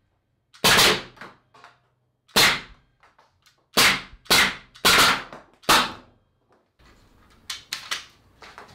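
Homemade compressed-air Nerf blaster firing single shots: six sharp pneumatic blasts at irregular intervals, each ending in a short decaying tail. A few lighter clicks follow near the end.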